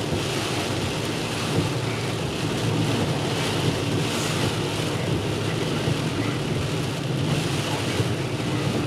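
Steady noise inside a moving car in heavy rain: a low road-and-engine rumble with the hiss of tyres on the wet road and rain on the car.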